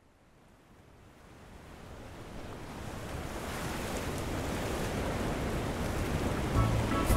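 Ocean surf sound effect: a steady rushing wash of water that fades in from silence and grows louder over several seconds. Music starts near the end.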